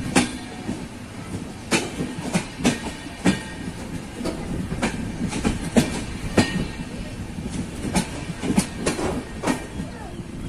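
Passenger train running on the rails, heard from an open coach doorway: a steady rumble with wheels clacking irregularly over the track joints.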